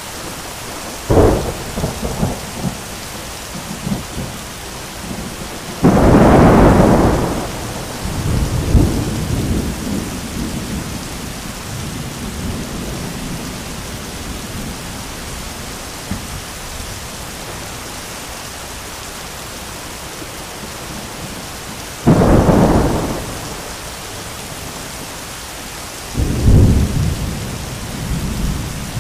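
Heavy rain pouring steadily, broken by cracking thunder: a sharp crack about a second in, the loudest and longest clap around six seconds in with rumbling after it, and two more claps in the last third.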